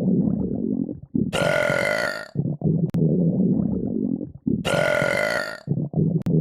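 Long, low, rasping burps, one after another. Between them come short, brighter, higher-pitched sounds, about a second in and again past the middle, in a regular cycle.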